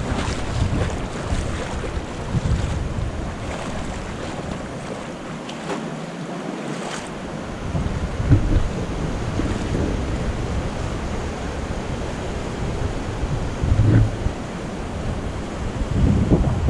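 Steady rush of Havasu Creek's flowing water, with wind rumbling on the microphone; the rumble drops away briefly midway.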